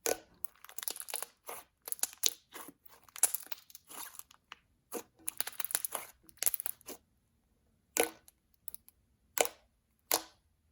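Very thick slime being handled, giving irregular sticky clicks and crackles in quick clusters separated by short pauses.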